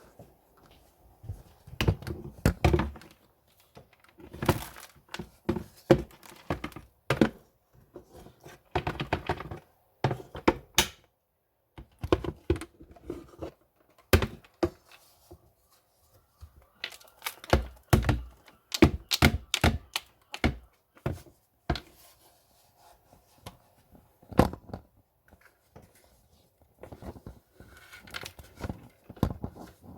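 Irregular knocks, thumps and clicks with short rustling and scraping, as of hard objects being handled and set down, with gaps of quiet between them.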